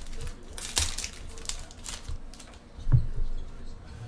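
Trading cards being handled: a few short rustling, sliding sounds of card stock, then a soft thump about three seconds in.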